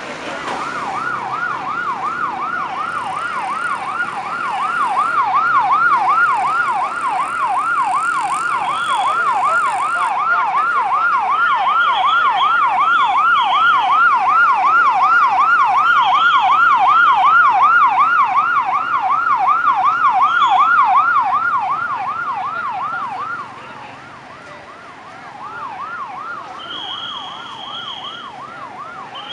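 Ambulance siren in a rapid yelp, its pitch sweeping up and down over and over. About 23 seconds in it cuts off, and a fainter siren with slower rising and falling sweeps carries on.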